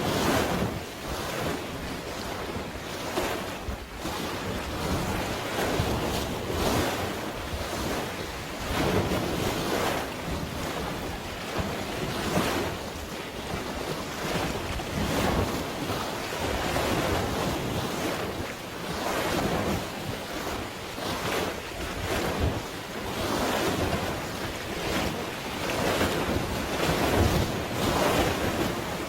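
Sea waves washing in, swelling every two to three seconds, with wind rumbling on the microphone.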